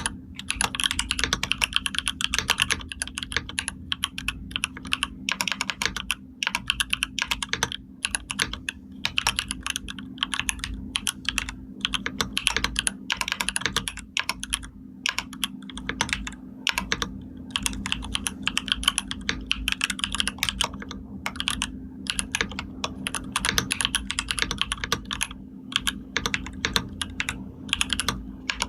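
Continuous typing on a computer keyboard: a dense, uneven stream of key clicks and taps, broken by a few short pauses.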